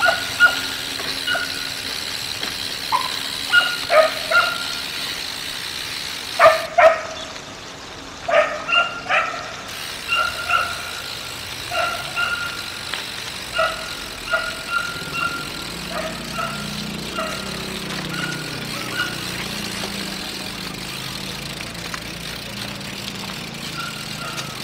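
A dog barking over and over in short, sharp yips, some in quick clusters of two or three, over a steady background hiss.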